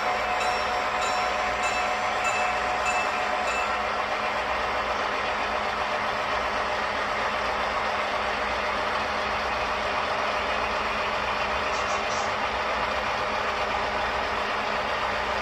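Model freight train running past on the layout: a steady mechanical rumble of the locomotive and rolling cars. A bell rings about three times a second during the first few seconds and then stops.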